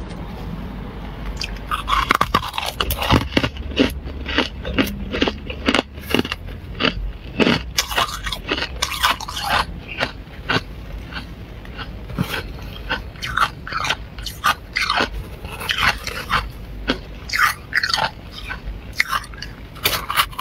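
Flaky freezer frost crunching close to the microphone: a dense string of sharp, irregular crunches, several a second.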